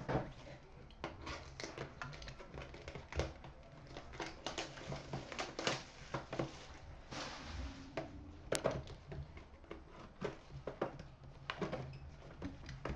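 A hockey card box and its wrapping being handled and opened by hand: irregular rustling and crinkling of packaging with many light taps and clicks of cardboard.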